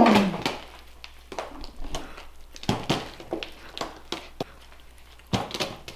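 A man eating a large stacked burger: chewing, with wet, smacking mouth clicks coming in irregular bursts. It opens with the tail of a short voiced groan that falls in pitch, and there is a louder burst of chewing or breathing noise about five seconds in.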